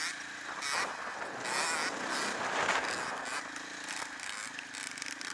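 Dirt bike engine running at a steady riding pace, with wind rushing and bumps from the rough trail on the bike-mounted camera's microphone.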